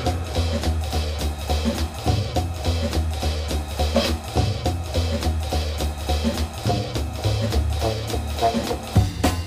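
Background music with a steady drum-kit beat over a bass line.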